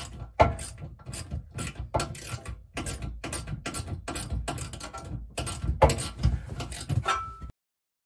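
Hand ratchet clicking in quick repeated strokes, about three a second, as screws are tightened through the wall safe into wooden 2x4 studs. It cuts off suddenly near the end.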